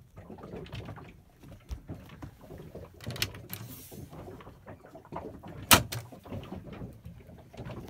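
A wooden cabinet door with a metal latch being opened and shut again, with small clicks and rustling throughout. The loudest sound is one sharp click of the door shutting, about three-quarters of the way through.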